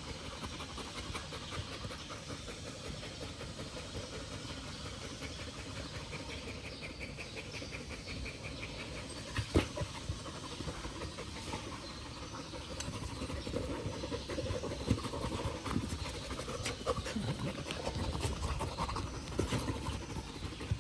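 A dog panting in rapid, rhythmic breaths. A single sharp knock about halfway through, and more low bumps and movement noise later on.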